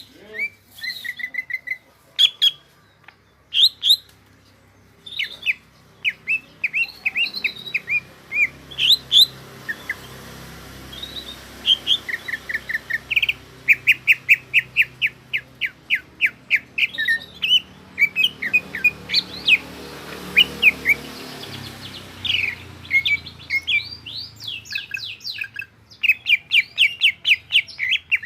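Cucak ijo (green leafbird) singing: rapid runs of short, sharp, high notes, some repeated in quick series, broken by brief pauses.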